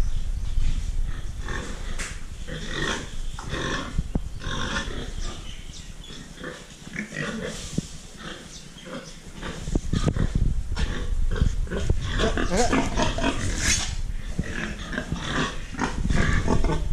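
Pigs grunting, a dense run of short calls, with a louder, higher-pitched call about two-thirds of the way through.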